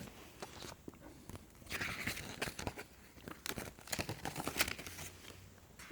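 Fingers fumbling with a drone battery's small plastic wire connectors: scattered faint clicks and rustling.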